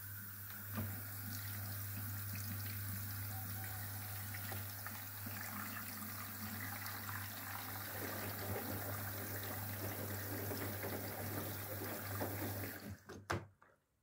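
Whirlpool FSCR90425 front-loading washing machine taking in rinse water through its detergent drawer: water rushing and splashing into the dispenser over a steady low hum. There is a sharp click about a second in as the drawer is pulled open. Near the end the flow stops suddenly with a couple of clicks.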